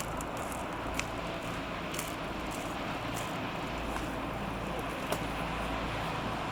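Low, steady engine rumble of a coast guard patrol boat passing through the strait, with a few faint clicks.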